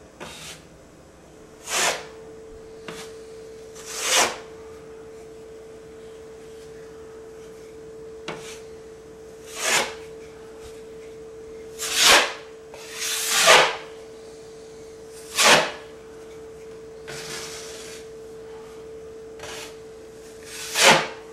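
Drywall knife scraping a thin coat of joint compound over a wall patch, in about ten separate short strokes with pauses between, one longer stroke about two thirds of the way through. A faint steady hum runs underneath.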